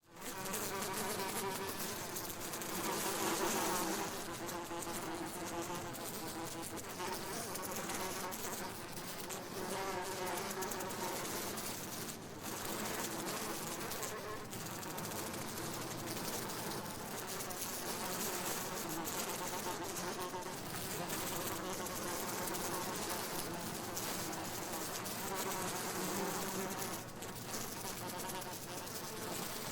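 Several flies buzzing continuously, their wingbeat tones overlapping and wavering in pitch as they move about.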